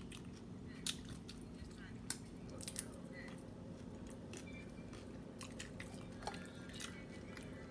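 A person chewing tacos close to the microphone: wet mouth smacks and a few sharp clicks, over a steady low hum.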